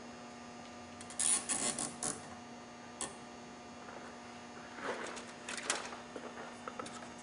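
Nylon zip ties being ratcheted tight around a rubber air intake hose: two spells of short rasping clicks and handling noise, about a second in and again about five seconds in, over a faint steady hum.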